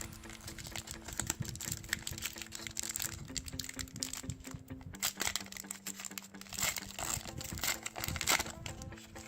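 Plastic booster pack wrapper crinkling in the hands as a pack of trading cards is handled and opened, in irregular crackles that are loudest in the second half, over background electronic music.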